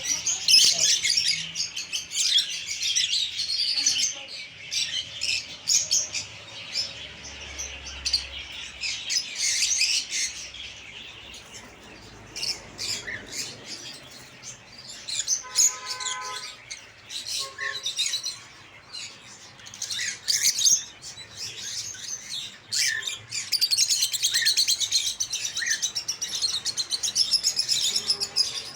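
Many cage birds chirping and twittering at once in a dense, continuous chorus of high chirps, with a short lower-pitched call about halfway through.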